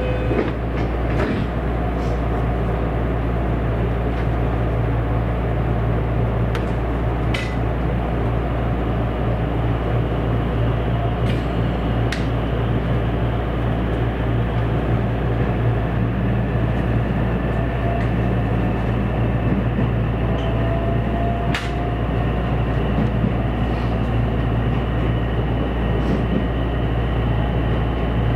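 Interior running noise of a JR West 227 series electric train: a steady rumble of wheels on rail with a few light clicks, and a faint whine that rises in pitch about two-thirds of the way through.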